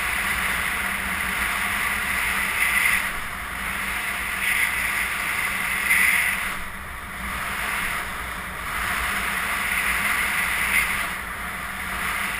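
Longboard wheels rolling on asphalt with wind buffeting the action camera's microphone: a steady roar that swells and eases every few seconds.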